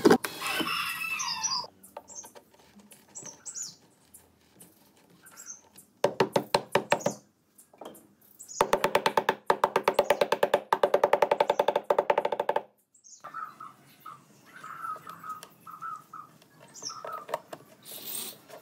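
Cordless impact driver driving screws into a wooden speaker cabinet, hammering rapidly in bursts, the longest about four seconds in the middle. Faint bird chirps in the quieter gaps.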